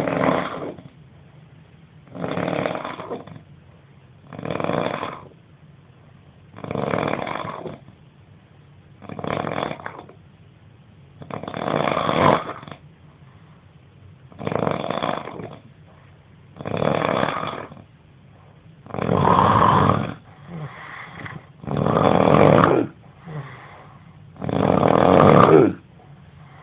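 A man snoring loudly in his sleep, one snore about every two and a half seconds. The snores grow louder over the last part, with a shorter, fainter sound between them.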